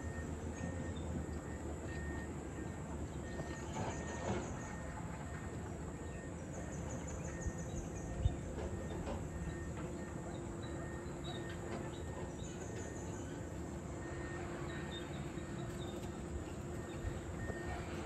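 Low, steady rumble of heavy construction machinery at work, an excavator and dump trucks. Insects chirp over it, with a few short high-pitched trills and an occasional knock.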